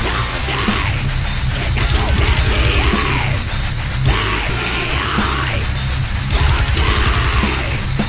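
Deathcore metal: distorted guitars over fast, dense drumming, with harsh yelled vocals swelling in and out.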